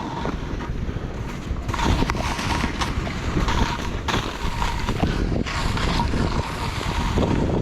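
Skis hissing and scraping through heavy snow in quick, uneven strokes, with wind buffeting the microphone in a low rumble.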